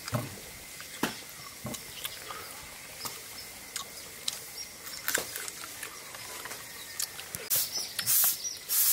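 Close-up mouth noises of a person eating chicken and rice by hand: scattered wet clicks and lip smacks while chewing. Near the end come several loud, airy, hissing sucking noises.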